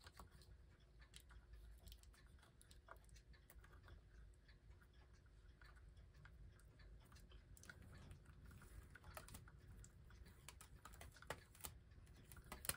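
Near silence with faint scattered clicks and rubbing from hands handling electrical wires and twisting a plastic wire nut onto them, with a few sharper clicks near the end.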